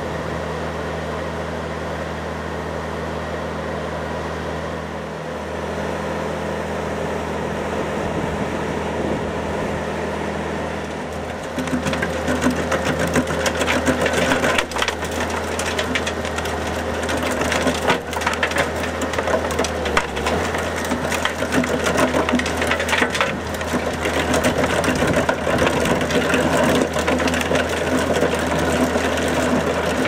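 Rock saw on a Huddig 1260 backhoe loader, its diesel engine running steadily with the toothed saw wheel spinning. About a third of the way in the saw bites into the ground, and a louder, dense crackle and rattle of the teeth tearing through soil and stones joins the engine.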